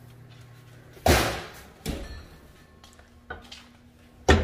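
The oven door shutting with a heavy thud about a second in, then a lighter knock. Near the end, a sharp clunk as the glass pie dish is set down on the gas stove's grate.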